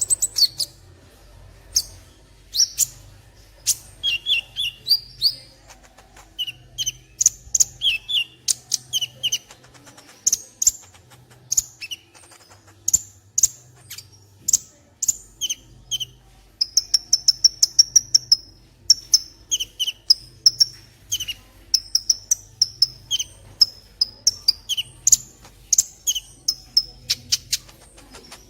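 Kolibri (sunbird) song: a fast series of sharp, high-pitched chirps and short trills, with a rapid run of repeated notes a little past the middle.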